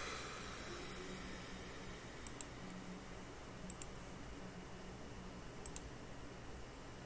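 Three pairs of sharp clicks, a second or two apart, over a faint steady hiss.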